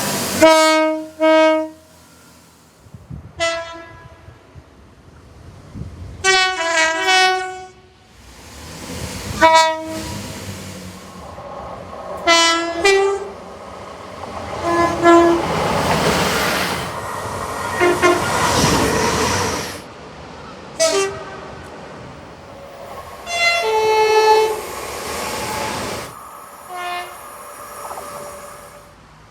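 A string of train horn blasts, mostly short single and double toots, several of them multi-note chords. Between them is the rolling noise of passing trains. The sound changes abruptly every few seconds from one horn to another.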